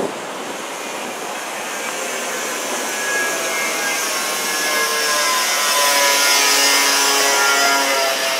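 City street traffic: a steady hiss of tyres and engines that grows louder, with a passing vehicle's engine whine peaking about six to seven seconds in.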